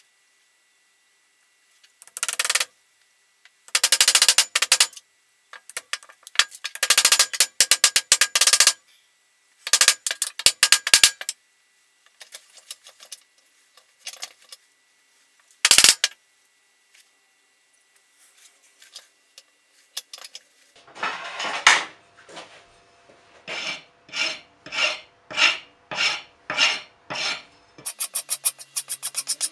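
A hand file rasping across a wooden knife handle, of burl birch, held in a vise. It goes in short bursts of quick strokes, then in the second half a run of even back-and-forth strokes, about one and a half a second, that quicken near the end.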